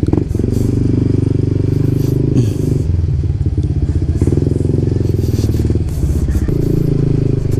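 Yamaha NMAX 155 scooter's single-cylinder four-stroke engine running at low riding speed, a steady pulsing drone, with a few short rattles and clatters along the way.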